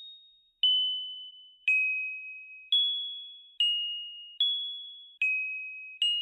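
Single high bell-like notes, as from a glockenspiel, struck one at a time about once a second. Each note sits at a different pitch and rings and fades before the next one comes.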